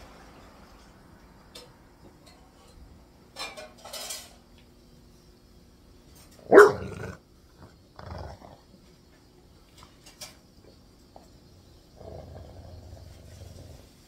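English bulldogs playing over a chew treat: one sharp bark about halfway through, with brief scuffling noises before and after it.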